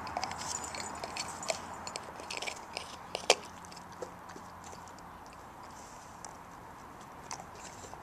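Springer spaniel chewing and crunching ice from a frozen bird bath: a run of sharp cracks and crunches, the loudest a little over three seconds in, then only the odd crack.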